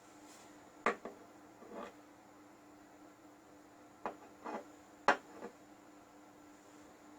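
A few sharp clicks or knocks in two short groups, the first pair about a second in and another cluster around four to five seconds in, over a faint steady hum.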